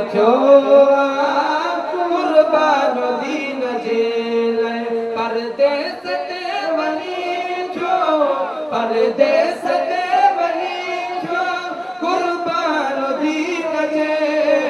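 A man singing a Sindhi naat, a devotional Islamic poem, in long held notes that waver and glide in pitch.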